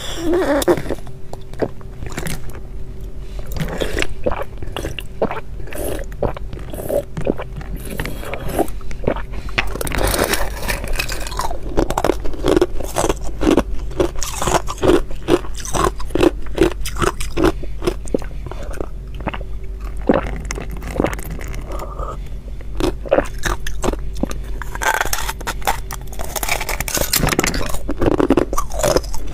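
Thin shells of clear ice being bitten and chewed: a long run of crisp crunches and cracks, over a steady low hum.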